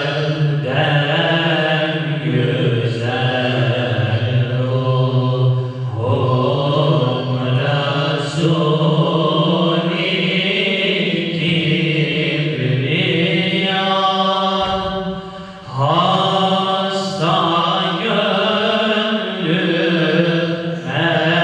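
A group of men sing a Turkish Islamic hymn (ilahi) unaccompanied into microphones. The melody bends in long phrases over a steady low tone, with one short break about two-thirds of the way through.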